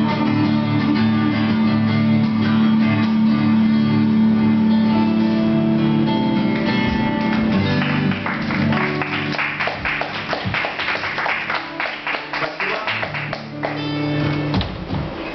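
Two acoustic guitars play the closing chords of a song and let them ring. About eight seconds in, the playing gives way to audience applause, and a guitar sounds again near the end.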